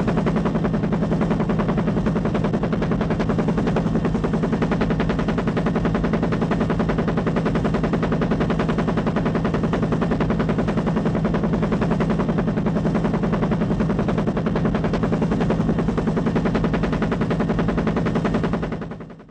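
A rapid, even run of sharp mechanical pulses over a steady low hum that fades out near the end.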